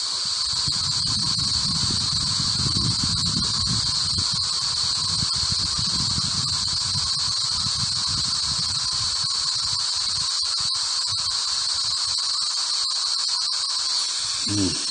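Ghost Radio (spirit-box) output: steady static hiss with a constant high-pitched whine on top, and patchy low, garbled sound under it for the first two-thirds or so.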